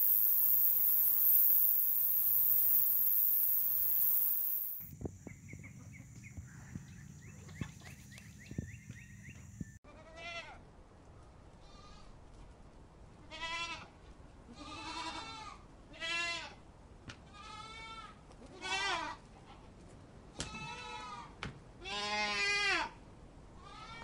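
Goats and sheep bleating: about a dozen separate calls, starting about ten seconds in. Before them there is a loud, steady high-pitched hiss for several seconds, then a few seconds of low rumble with scattered clicks.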